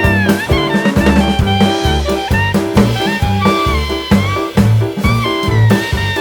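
Jazzy swing background music: a drum kit keeping a steady beat under a bass line, with a saxophone-like horn playing the melody.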